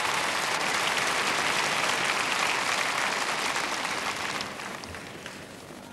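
Theatre audience applauding, dying away over the last second or so.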